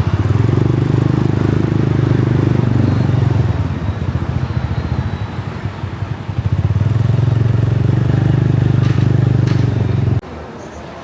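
Motorbike taxi's engine running under way, a steady low drone that eases off for a couple of seconds midway and picks up again, then cuts off suddenly near the end.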